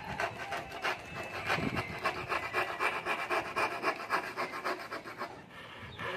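A hand tool scraping on wood in quick back-and-forth rasping strokes, about five a second, stopping about five seconds in.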